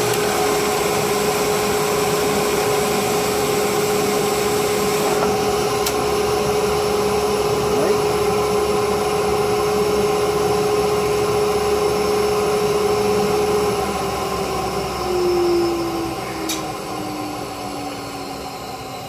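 Electric drill in a DrillNado drilling jig running steadily at one pitch while boring a pen blank, then winding down, its pitch falling and the sound growing quieter over the last few seconds.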